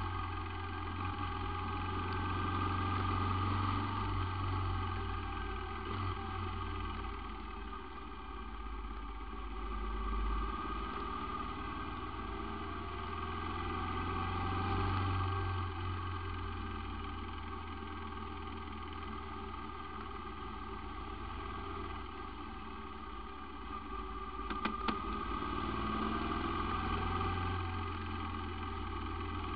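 Moto Guzzi motorcycle riding along at a steady cruise, its engine running steadily with the note swelling and easing gently as speed changes, over tyre and wind noise. A few brief clicks about 25 seconds in.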